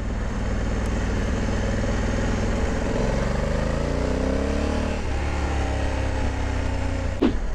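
Honda Africa Twin 1100's parallel-twin engine pulling under acceleration, its pitch rising for a couple of seconds until the DCT gearbox shifts up automatically about five seconds in and the revs drop; it then runs on steadily. A short tap is heard near the end.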